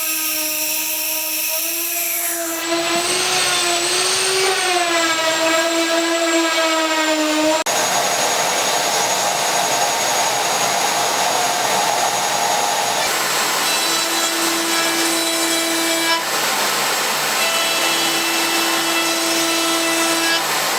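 Wood CNC router spindle running with a high, steady whine while the bit cuts wood, adding a hissy cutting noise. The pitch wavers for the first several seconds, and the sound changes abruptly twice, about 8 and 13 seconds in.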